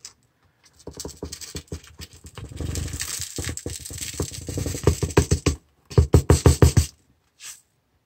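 A green plastic gold pan tapped and scraped to shake gold flakes off its edge onto a folded paper: irregular taps with a dry scraping in the middle, then a quick run of sharp taps, about seven a second, about six seconds in.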